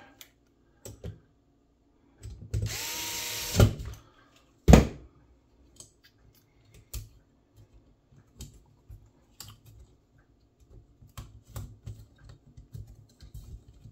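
Metabo cordless electric screwdriver running for about a second and a half, its pitch rising and then holding as it drives a screw, followed by two sharp knocks, the second the loudest. Then scattered light clicks and taps of small metal parts being handled.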